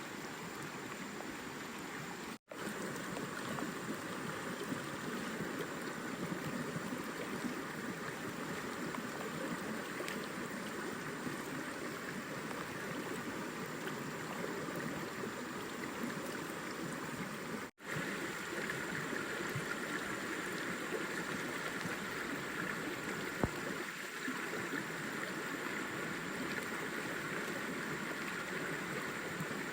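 Steady rushing of a forest stream's running water, cutting out for an instant twice.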